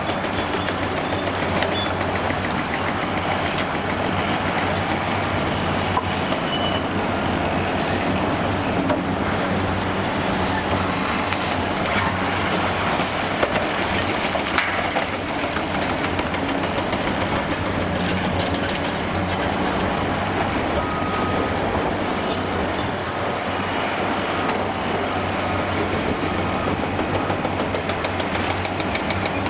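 Heavy demolition excavators' diesel engines running steadily under load, with scattered cracks and clatter of concrete being broken and falling.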